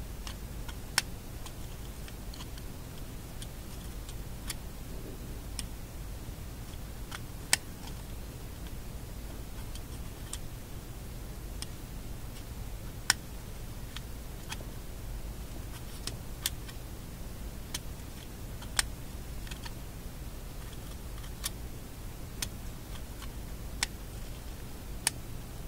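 Light, sharp clicks at irregular intervals of one to three seconds over a steady low hum: a magnet tapping as it is stroked, one stroke after another, across a radio shadow meter's internal magnet to re-magnetize it.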